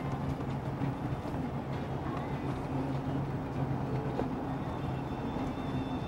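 Steady vehicle engine drone and tyre rumble heard from inside a car driving on a highway.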